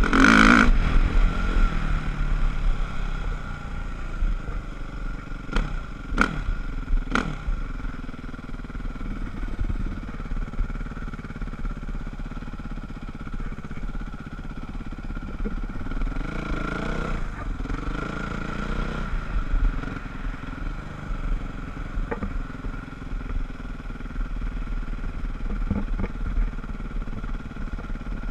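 Dirt bike engine running under way, heard from a helmet-mounted camera, its revs swelling and easing, with a few sharp knocks about six and seven seconds in.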